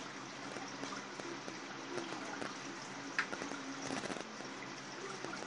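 Steady trickle and low hum of an aquarium's filter and aeration, with a light click about three seconds in.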